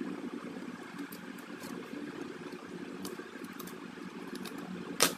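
Steady low hum under light, scattered clicks of metal tweezers working at a phone's display frame, with one sharper click near the end.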